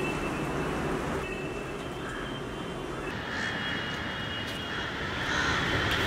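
Steady outdoor city background noise, a distant hum with no single event standing out, with faint high bird calls over it.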